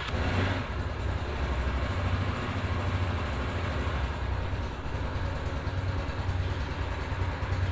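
SuperStar 200 motorcycle engine just caught on its first-ever start, fading from the start-up burst in the first half second into a steady idle.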